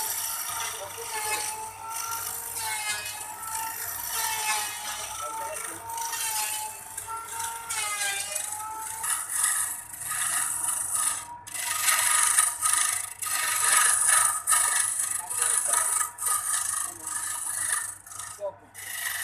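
Wood lathe spinning a wooden blank while a hand-held turning chisel cuts it. A wavering whine runs through the first half, then a louder hissing, scraping cut takes over from about nine seconds in.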